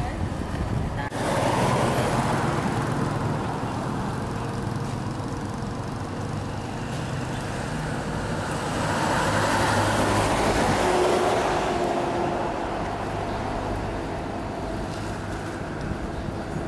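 Road traffic: motor vehicle engines running, with two louder swells as vehicles pass, one starting about a second in and another around nine to eleven seconds in.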